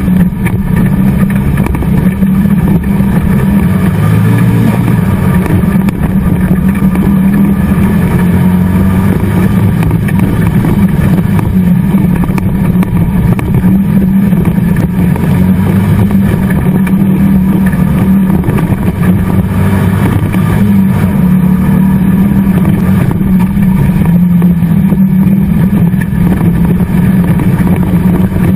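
Race car engine running hard on a dirt track, heard loud from inside the stripped, roll-caged cockpit. The revs rise and fall as the car is driven through the course.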